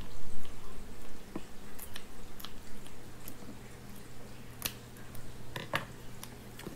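Kitchen scissors snipping and crunching through a raw crab's shell and body, with wet squishy handling: a series of irregular sharp clicks, the loudest a few seconds in. A low steady hum runs underneath.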